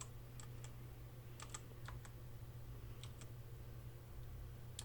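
Faint, scattered key presses on a Redragon Kumara mechanical keyboard with Outemu Red switches: light, irregular clicks every half second or so.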